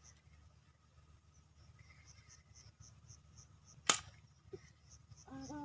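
Faint insects chirping in a steady rapid pulse of about five chirps a second, with one sharp click about four seconds in.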